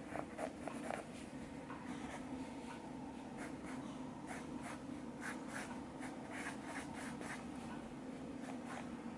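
Pencil scratching on sketchbook paper in many short, irregular sketching strokes, over a steady low hum.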